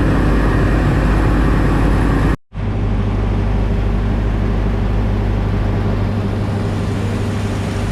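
Steam locomotive giving a loud, steady rumbling noise, with no clear beat. About two and a half seconds in it cuts out for a split second and starts again.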